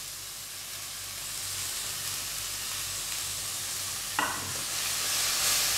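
Julienned vegetables sizzling as they sauté in hot oil in a wok-style pan. About four seconds in a spatula strikes the pan, and the sizzle grows louder as the vegetables are stirred.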